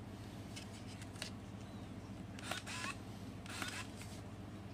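Handling clicks and clacks from an empty Canon EOS Kiss film SLR body held with its back door open: a few sharp clicks, with two louder short clattering clacks around the middle, over a steady low hum.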